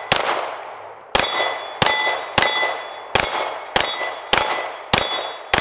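Smith & Wesson M&P9 Compact 2.0 9mm pistol fired nine times in a steady string, about three shots every two seconds. Each shot is followed by the ringing of a steel plate target being hit.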